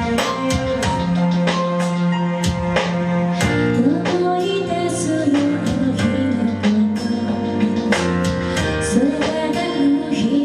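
Live band music with a drum kit keeping a steady beat and guitar chords. A gliding melody line, likely a female voice singing, comes in about four seconds in.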